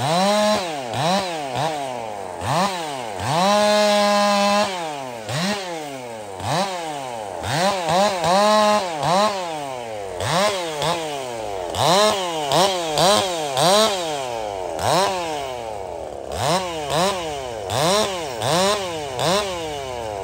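Big-bore Husqvarna 359 two-stroke chainsaw blipped over and over, each rev rising and falling a bit more than once a second as it cuts through small limbs. It is held at full throttle for about a second and a half some three seconds in, and again briefly near eight seconds.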